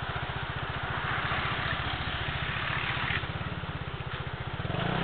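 Motorcycle engine running steadily with an even, rapid pulse, with wind and road noise over it.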